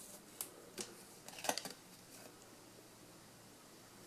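Faint snaps and rustles of Topps Match Attax trading cards being handled and flipped over by hand, a few quick ones in the first second and a half, then little more.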